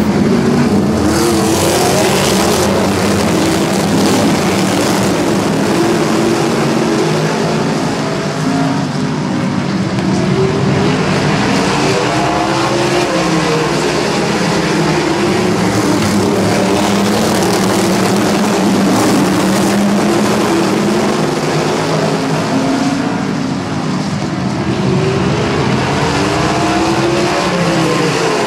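A pack of modified race cars' V8 engines running around a short oval, their pitch rising and falling again and again as the cars accelerate off the turns and pass by.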